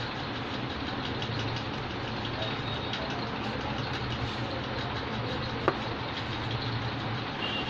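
Steady low mechanical hum with a hiss, engine-like and unchanging, with one sharp click a little under six seconds in.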